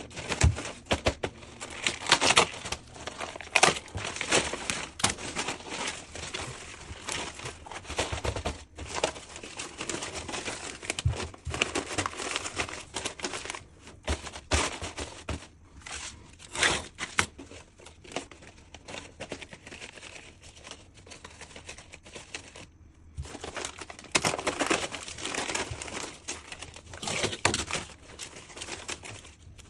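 Irregular crinkling, scraping and clicking of hand work, with a brief pause about 23 seconds in.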